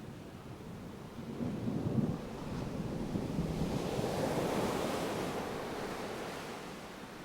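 Ocean surf breaking and washing in, swelling about a second in and easing off near the end. A low rumble of distant thunder comes with the swell around two seconds in.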